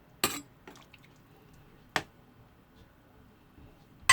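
A few short, sharp knocks of a utensil or lid against a cooking pot: one just after the start, one about two seconds in, and a louder double knock at the end.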